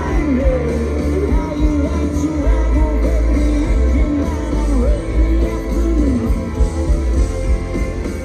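Live rock band playing loud, with heavy bass under a bending guitar or vocal line and singing.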